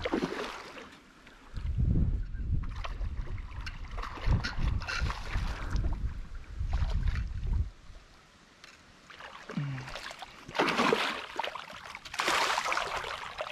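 A hooked largemouth bass splashing and thrashing at the surface as it is fought in to the bank, with louder splashing near the end as it reaches the shallows. Wind buffets the microphone with a low rumble for several seconds in the first half.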